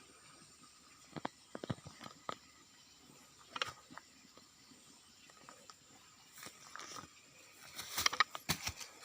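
Irregular crackles and clicks in short clusters, busiest near the end, over a faint steady high-pitched whine.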